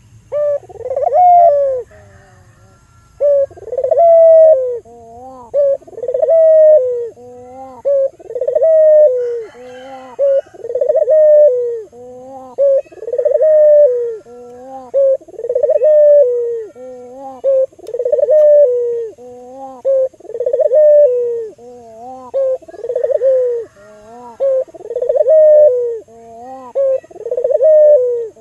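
Albino domestic ringneck dove (burung puter) cooing over and over: each call is a short note followed by a longer rolling coo, repeated about every two seconds.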